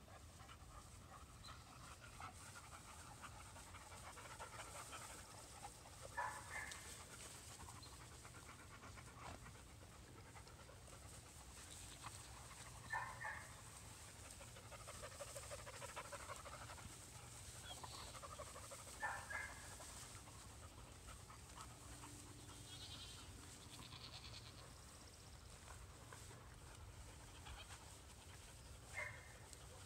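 Labrador retrievers panting faintly as they move through tall grass, with four short animal calls spread through the stretch.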